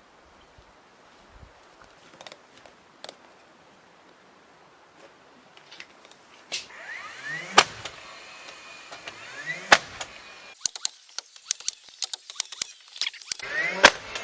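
Sharp knocks and metallic clatter: a few spaced single strikes, then a quick, dense run of clicks and rattles over the last few seconds.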